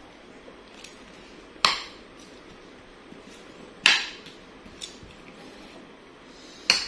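White plastic spoon knocking against the tabletop while scooping food, three sharp clacks a little over two seconds apart with a few faint ticks between them.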